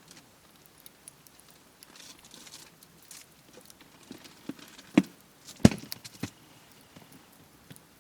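Three sharp wooden knocks, about two-thirds of the way through, the middle one the loudest: firewood being handled or struck, as when preparing wood for a campfire.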